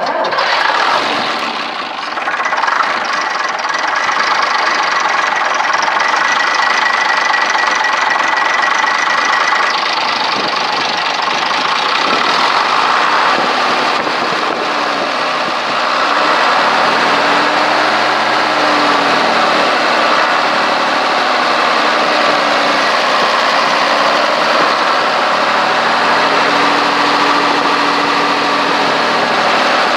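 1954 AEC Militant tanker's six-cylinder diesel engine running steadily on a test run during its restoration, heard close up over the open engine.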